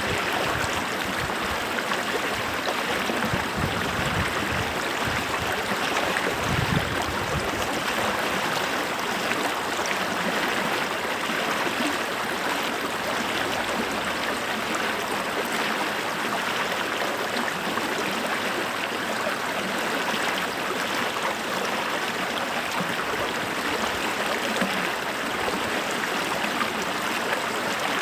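Running water from a stream flowing, a steady even rush with no pauses.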